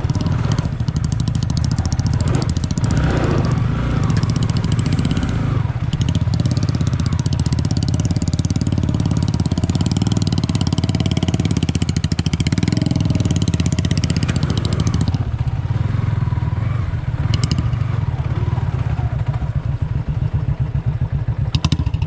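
Motorcycle engine running steadily under load on a rough off-road trail, a fast even pulse with a high hiss over it that falls away about fifteen seconds in.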